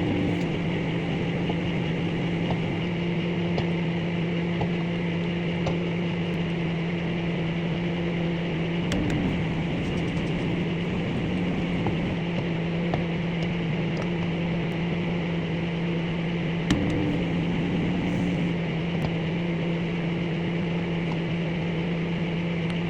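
Microwave oven running with a steady electrical hum and fan noise, with a few faint ticks scattered through it.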